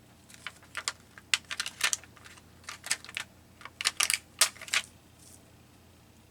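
A run of light, irregular clicks and taps in small clusters as small paper craft pieces are shifted and set down on a work surface. It stops about five seconds in.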